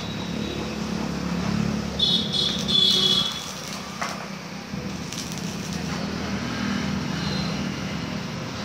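Electric arc welding of tacks on steel gate-grill bars: the arc crackles and hisses in short spells, loudest from about two to three and a half seconds in and again briefly around five seconds, over a steady low hum.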